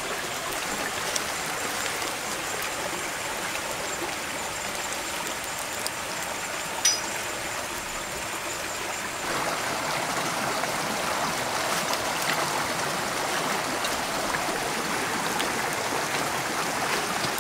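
River water running in a steady rush, growing a little louder from about nine seconds in, with a few faint clicks and one sharper click about seven seconds in.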